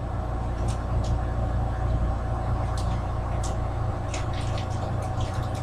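A steady low mechanical hum made of several fixed tones, with a few faint ticks over it.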